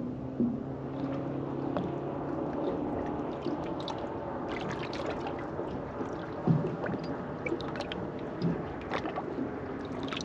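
Water sloshing and lapping around a small boat on the bay, with scattered clicks and knocks. A low steady hum runs through the first few seconds, then fades.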